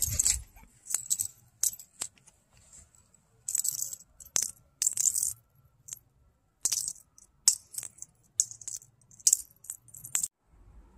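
Something small rattling in short, irregular shakes, about a dozen bursts of under a second each with quiet gaps between, and a few sharp clicks.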